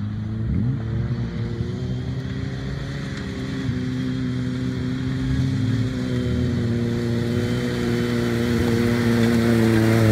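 Jeep Wrangler TJ engine running at steady low revs as it crawls up a muddy, rutted track, growing louder as it approaches.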